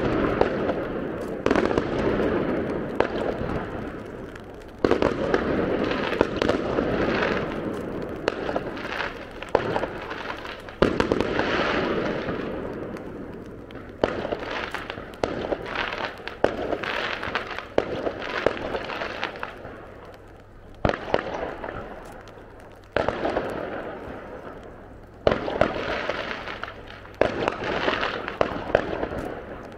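Aerial fireworks bursting in a steady run, a sharp bang every few seconds, each followed by crackling and a rumble that dies away over a second or two. A faint low hum runs beneath.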